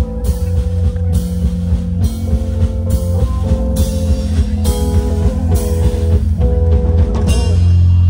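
Live rock band playing through an outdoor PA: electric guitar and bass over a steady drum-kit beat. Near the end the drums stop and a low note is held.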